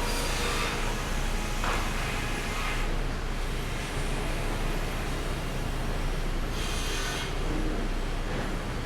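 Sawmill machinery running steadily at the green chain, with three brief scraping, hissing bursts as lumber moves along.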